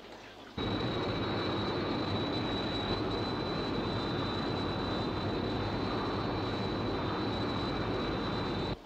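Jet-aircraft flight sound effect for the Sky One interceptor in flight: a steady jet-engine rush with a thin, high, steady whine over it. It cuts in suddenly about half a second in and stops suddenly near the end.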